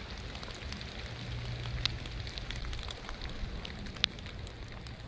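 Steady rainfall with individual drops ticking sharply, the sharpest about two seconds in and again about four seconds in.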